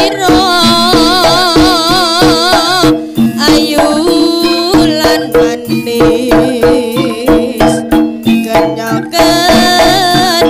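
Live Javanese jaranan music: hand drums beating a steady pattern under a sustained wavering melody and held low tones.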